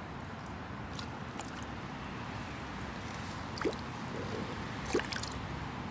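Hooked crucian carp splashing at the water's surface as it is drawn in to the bank: two short splashes, about three and a half and five seconds in, over a steady background hiss.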